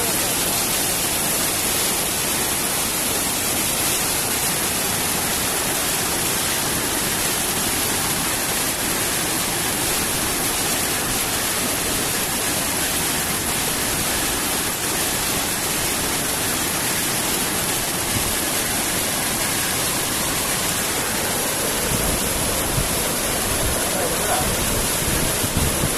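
Steady rushing noise of flowing water, with low rumbling bumps in the last few seconds.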